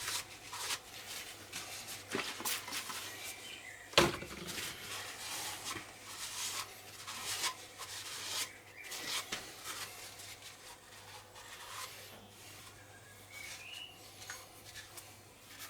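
Light clicks, scrapes and rubs from valves being handled in a Kubota three-cylinder cylinder head during a check of the lapped valve seats, with one sharp knock about four seconds in.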